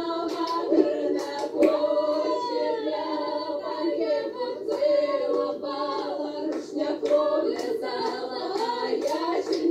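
Female vocal group singing a folk song a cappella in several-part harmony, with hand claps.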